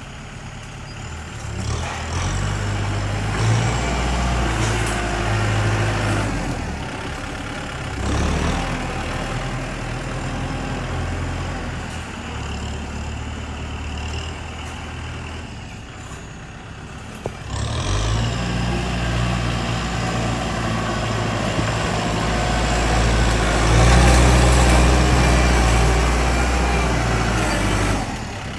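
Heavy diesel machinery engine running and revving up repeatedly under load, in spells several seconds long. About two-thirds of the way through comes a sharp short hiss, after which the engine revs hard for about ten seconds.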